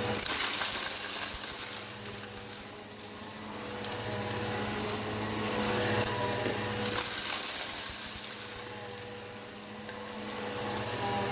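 Eureka PowerSpeed upright vacuum cleaner running steadily, its suction rising and falling as it is pushed back and forth over spilled rock salt and lentils, with occasional ticks of debris.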